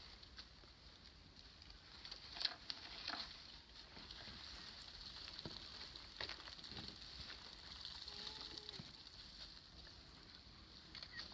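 Faint crackling and rustling of dry leaves and twigs on the forest floor, with a few sharp snaps scattered through, the loudest about two and a half seconds in.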